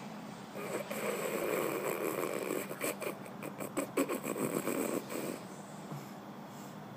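A snore: one long, noisy snore lasting about five seconds, breaking up into short rattling pulses in its second half before it cuts off.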